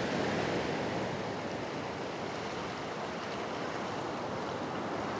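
Small sea waves breaking on a sandy beach: a steady wash of surf.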